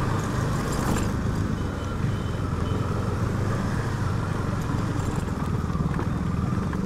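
KTM Duke 250's single-cylinder engine running steadily at low speed, heard with wind rumble on a chest-mounted action camera's microphone.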